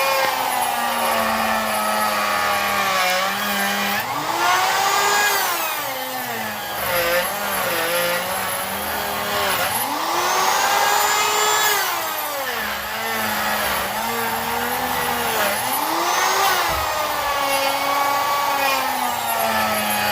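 Electric power tool motor working black walnut on a slab jig. Its pitch repeatedly sags and recovers every second or two as the cut loads and frees the motor.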